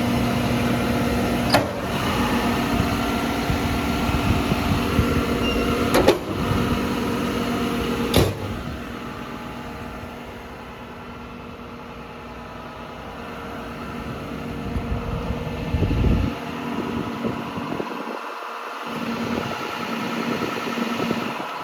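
John Deere 210G LC excavator's diesel engine idling steadily, with three sharp knocks at about 1.5, 6 and 8 seconds in. The engine sound grows quieter for several seconds in the middle, then comes back up.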